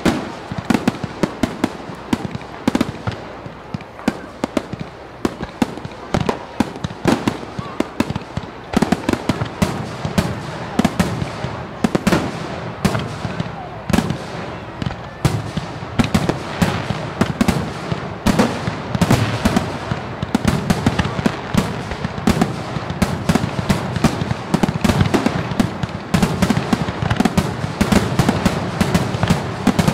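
Fireworks display: a continuous run of sharp bangs and crackling, several reports a second, growing denser about nine seconds in.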